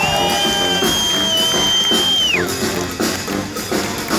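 Live brass band music: saxophones, trombones and sousaphone over a drum kit. A long high note is held for about two seconds and then slides down and falls away.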